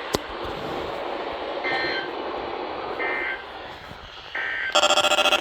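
NOAA Weather Radio's EAS/SAME end-of-message data bursts closing a Severe Thunderstorm Watch broadcast: three short two-tone warbles about a second and a half apart over a radio hiss. Near the end a louder electronic beep pulses rapidly.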